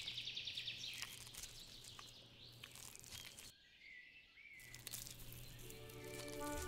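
Faint outdoor ambience: a quick bird trill at the start, light crunching of leaves and a short bird call later on. Sustained music notes come in near the end.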